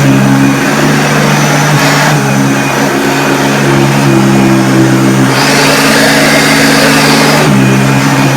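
A 1977 Hoover Junior Deluxe upright vacuum cleaner running steadily, its motor giving a hum with several steady tones under the rush of air and brush. A brighter hiss swells from about halfway through until near the end. The owner says it is running really well.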